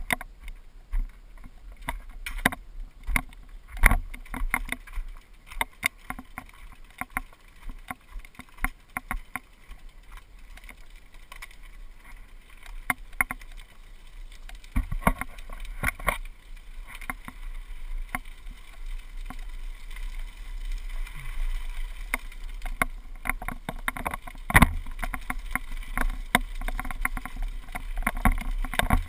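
GoPro HD camera rattling in its mount on a mountain bike riding down a gravel forest trail: irregular clicks and knocks over a steady low rumble, with one sharp knock near the end.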